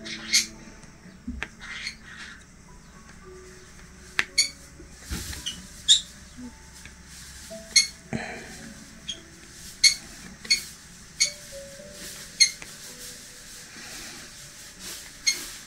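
Diamond-painting drill pen tapping resin drills onto the canvas: a dozen or so short, sharp clicks at irregular intervals, over quiet relaxing background music.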